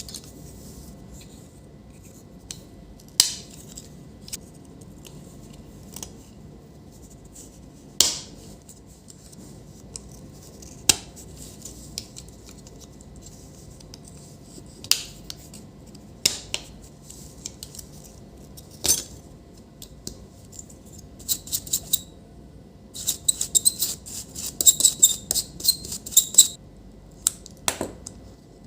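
Small tools and plastic parts clicking and scraping as a laptop cooling fan is taken apart: separate sharp clicks every few seconds, then a quick run of clicking and scratching about three-quarters of the way through.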